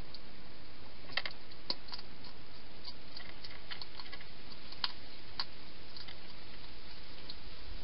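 Scattered sharp clicks and crunches, a few louder ones among fainter ticks, over a steady hiss: a wild hedgehog chewing dry food at a feeding station.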